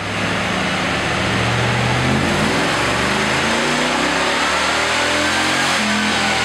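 Naturally aspirated 350 cubic inch LT1 V8 of a 1996 Pontiac Firebird Trans Am at full throttle on a chassis dynamometer, its revs climbing steadily with a rising pitch. This is a baseline pull before the supercharger is fitted, with the rear tyres spinning the dyno rollers.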